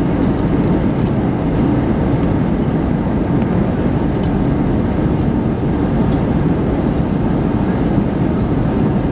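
Steady cabin noise inside an Airbus A320 in flight, heard from a window seat: an even, deep roar of the engines and the airflow over the fuselage.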